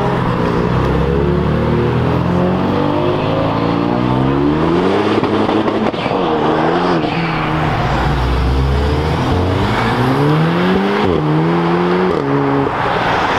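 Cars accelerating away one after another, their engines revving up with the pitch climbing and then dropping sharply at gear changes several times.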